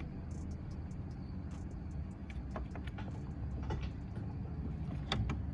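Light clicks and taps as a steering-wheel hub is worked onto the steering-column splines, its teeth not yet lining up, over a steady low hum.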